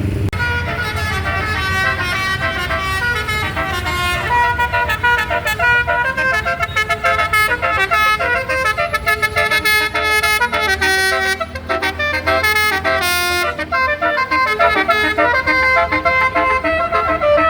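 A bus's Basuri telolet horn, a multi-trumpet musical air horn, playing a quick tune of changing notes, with a fast repeated run of notes around the middle. An engine is running underneath.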